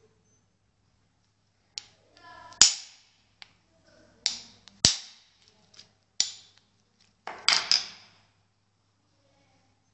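Small brass padlock knocked and clacked against steel pincers: about eight sharp metallic knocks and clicks, the loudest about two and a half seconds in, with a quick cluster of knocks near the end.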